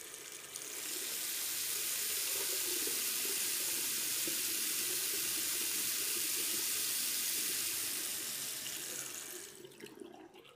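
Water running into a stainless-steel kitchen sink as the supply line is drained through a tap whose spindle has been removed. It is a steady rush that swells about a second in and dies away near the end as the water runs out.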